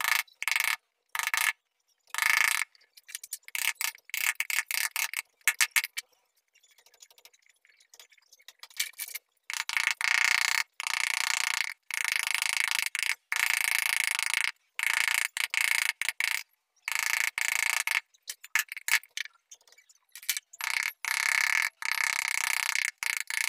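Sandpaper on a wooden block rubbed back and forth over a carved wooden door panel: repeated rasping strokes, each cut off sharply, with a quieter stretch from about six to nine seconds in.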